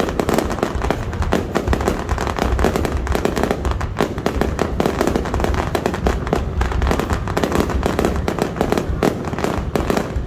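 Aerial fireworks going off in a rapid, continuous barrage of bangs and crackles with a deep rumble underneath.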